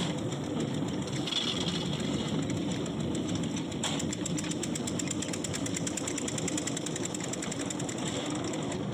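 Spun concrete pipe machine running: the steel pipe mould turning on its rollers with a steady, fast mechanical rattle, with shovels scraping through wet concrete mix and one sharp knock about four seconds in.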